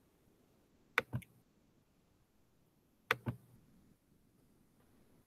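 Clicking on a computer: two quick double clicks about two seconds apart, with quiet room tone between.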